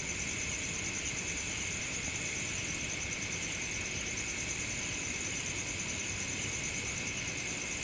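Night ambience of insects trilling steadily in two high-pitched layers, the higher one a fast, even pulse, over a faint hiss.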